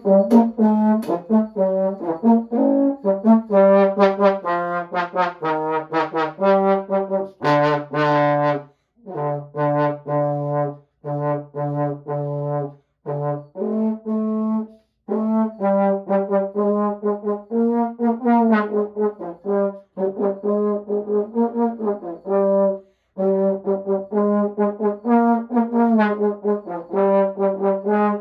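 Solo trombone playing a melody of short, separate notes, mostly in the middle of its range, with a run of lower notes about a third of the way in.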